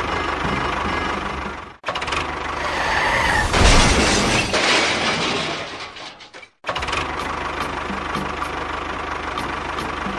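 Small motor of a DIY miniature construction vehicle running steadily. Its sound cuts off abruptly twice, and a louder rattling clatter comes near the middle.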